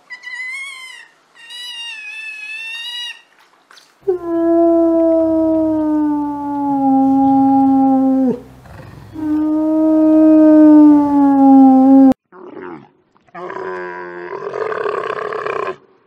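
A few short high-pitched chirping calls, then two long howls from a grey wolf, each sliding gently down in pitch, the first lasting about four seconds and the second about three. Near the end comes a dromedary camel's rough, rasping groan.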